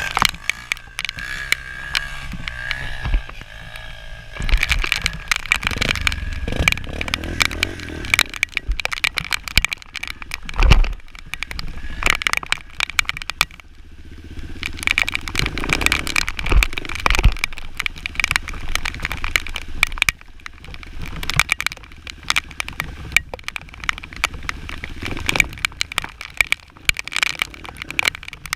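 Honda XR200 single-cylinder four-stroke trail bike being ridden, its engine note rising and falling, with dense crackling and knocks throughout and a heavy thump about eleven seconds in.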